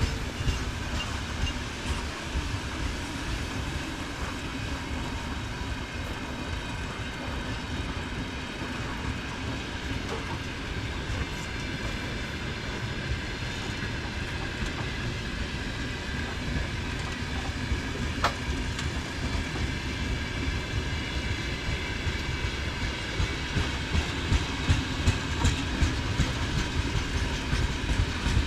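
Freight train wagons rolling past, a steady rumble with the rapid clickety-clack of wheels over rail joints, growing louder with heavier clacks near the end.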